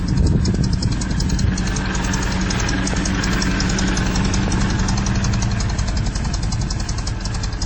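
A large forklift's engine running steadily at idle, a low hum with a fine, even rapid pulsing over it.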